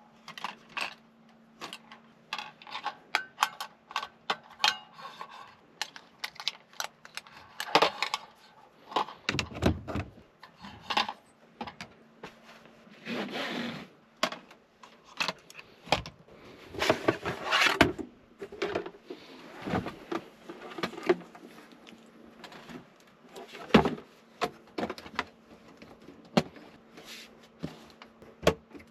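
Small objects being handled up close: an irregular string of clicks, clinks and knocks, with a couple of longer rustling, scraping stretches, over a faint steady hum.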